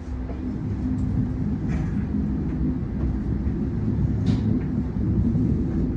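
Electric passenger train heard from inside the carriage while running at speed: a steady low rumble of wheels on track with a faint steady hum.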